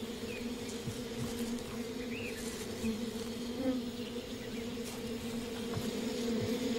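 Swarm of honeybees buzzing in a steady, low hum around a beehive that a bear has smashed open; the bees are disturbed and angry.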